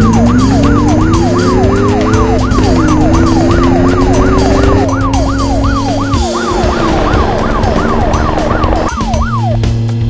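Cartoon siren sound effect: a fast repeating yelp, each sweep falling in pitch, about two and a half a second, that cuts off near the end. Two rising tones sound lower down in the first half, over steady background music.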